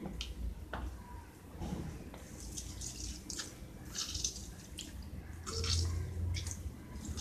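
Wet squelching and dripping of lemon being squeezed over masala-coated raw chicken pieces in a steel kadai, which are being worked by hand. It comes as irregular short squishes over a steady low hum.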